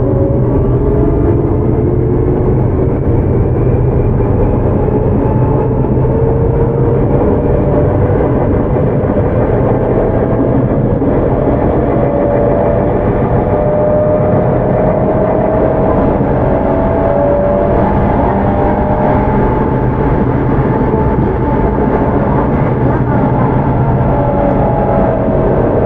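Tokyu 9000 series electric train's early Hitachi GTO-VVVF inverter and traction motors whining, several tones climbing slowly in pitch as the train accelerates. Under them runs the steady rumble of wheels on rail, heard from inside the car.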